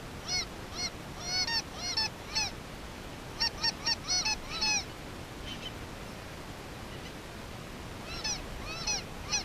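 A flock of geese flying overhead, calling in short high honks that each rise and fall in pitch. The calls come in three bunches: near the start, around the middle, and again near the end.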